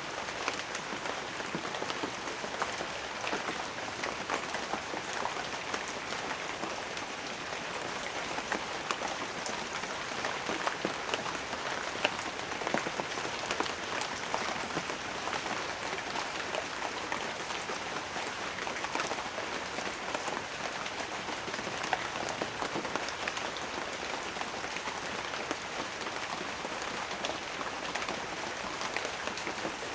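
Steady rain with many separate drops pattering on a surface.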